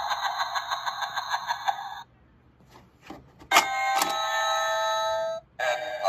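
Magic Power 2010 vampire tongue doorbell prop playing through its small built-in speaker. A tinny synthesized tune ends about two seconds in, and after a short pause with a couple of clicks the doorbell sounds a two-note ding-dong chime that rings on for about two seconds. The next tune starts just before the end.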